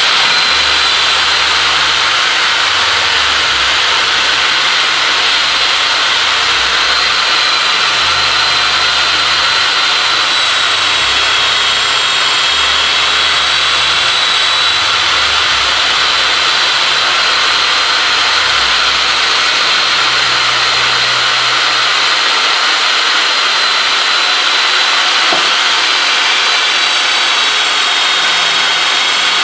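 Power drill running steadily at speed as a makeshift lathe, turning a half-inch PVC pipe that locking pliers are held against to shave it down. A steady high motor whine sits over the even rushing noise of the drill and the cutting.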